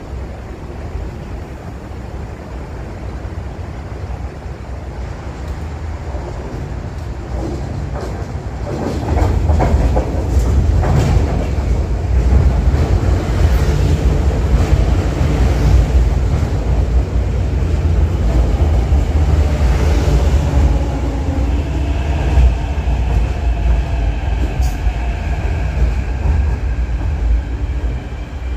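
MTR Kwun Tong line Q-train arriving at the platform. A low rumble swells sharply about nine seconds in as the train runs in, with wheel clicks over the rail joints. Over the last several seconds a high whine from the train comes in as it slows to a stop.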